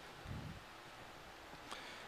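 Quiet room tone with a soft low bump about a third of a second in and a faint click near the end.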